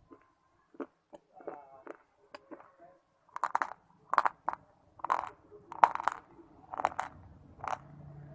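Close-up crunching as someone bites and chews hard, brittle chunks of earthy clay and shale stone. A few soft mouth clicks come first, then about eight sharp crunches starting about three seconds in, roughly two a second.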